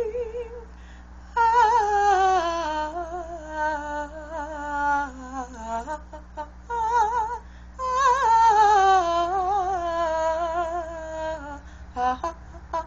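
A classically trained female voice sings a wordless vocalise with strong vibrato: two long phrases that each slide downward in pitch, with short notes between them.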